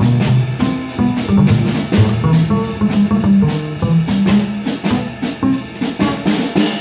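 Plucked double bass soloing on a jazz blues, a line of quick low notes, with a drum kit keeping time behind it.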